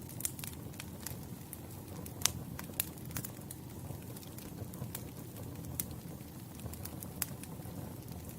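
Campfire burning: a steady low rush of flames with scattered sharp crackles and pops of the burning wood. The loudest pop comes about two seconds in, another just after, and one more near the end.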